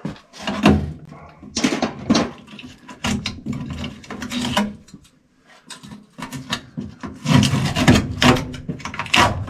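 Foil tape crinkling and tearing and sheet metal rattling and knocking in irregular bursts as a taped furnace duct joint is worked apart by hand.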